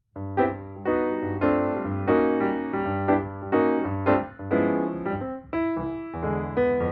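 Background music led by piano, with chords changing about every half second over a steady bass line.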